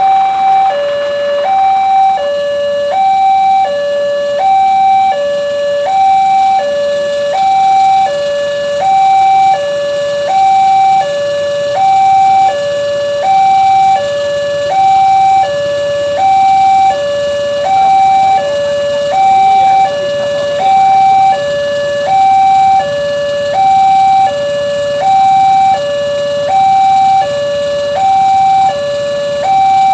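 Railroad level-crossing warning alarm sounding a steady two-tone high-low electronic signal, switching pitch about every two-thirds of a second.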